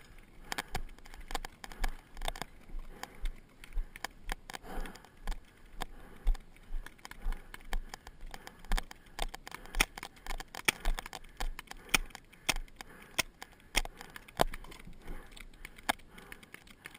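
Footsteps on grass at about two a second, each jolting the body-worn camera with a low knock, while the carried gear and gun rattle and click.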